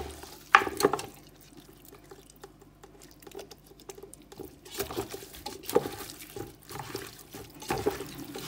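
Hands squeezing and turning seasoned raw chicken pieces among chopped vegetables in a pot: short, irregular wet squelches. The loudest come about half a second in, there is a lull a couple of seconds long in the middle, and the squelching starts again after it.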